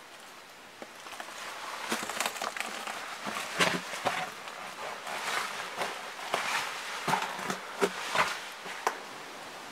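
Footsteps scrambling over loose rocks and rubble: irregular crunches, scuffs and knocks of stone on stone, over a steady hiss.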